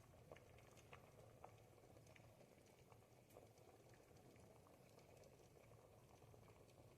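A pot of ribollita, a thick Tuscan bread-and-vegetable soup, simmering: faint soft bubbling with scattered small pops.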